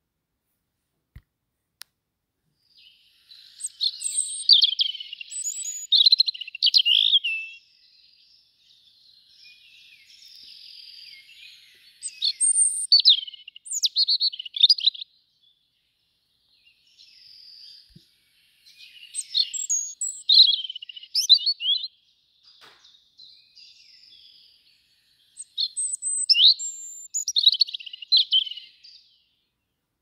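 European robin singing: four loud, high, warbling song phrases of a few seconds each, separated by pauses, with fainter song in some of the gaps.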